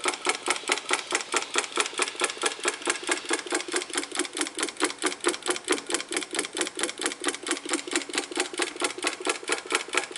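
Homemade solenoid engine running steadily, with a fast, even clicking as the solenoid pulls the piston over and over.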